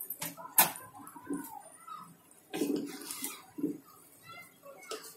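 Metal ladle knocking and scraping in an aluminium pot as cooked biryani rice is turned over. Two sharp clicks come in the first second, then soft irregular knocks.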